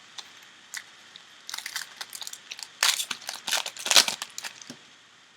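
A foil trading-card pack wrapper being torn open and crinkled by hand: a burst of irregular crackling and tearing, loudest in the middle.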